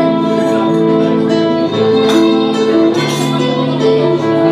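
Live music from a small string band: a violin melody of long held notes over a plucked guitar accompaniment.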